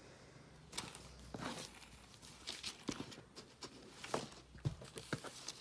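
Rustling and light taps of a garment and its packaging being handled, irregular and starting about a second in.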